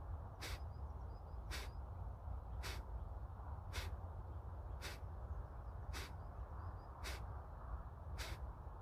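Sharp, forceful exhalations through the nose, one about every second, eight in all: Kapalbhati pranayama breathing, each breath pushed out by a snap of the belly while the inhale follows on its own. A low, steady rumble runs underneath.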